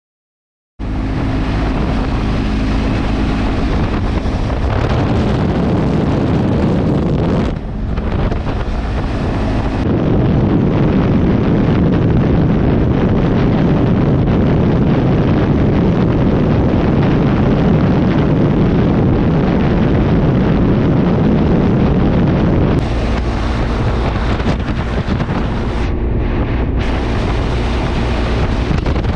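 Motorcycle riding along, its engine running under heavy wind noise buffeting the microphone. The sound cuts in about a second in and the wind noise dominates throughout.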